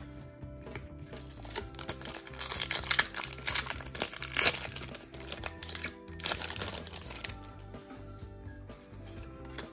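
Foil booster pack of trading cards crinkling and tearing as it is ripped open by hand. It is loudest from about two and a half to five seconds in, and again around six seconds, over steady background music.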